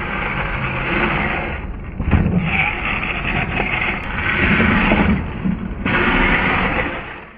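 Radio-controlled monster truck driving hard, its motor and drivetrain running in spurts with tyre noise, and a sharp thump about two seconds in as it lands.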